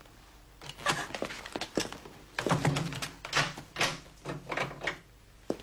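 A rapid, irregular series of loud knocks and thuds in a small room, heaviest and most crowded about two and a half to four seconds in, ending with a single knock near the end.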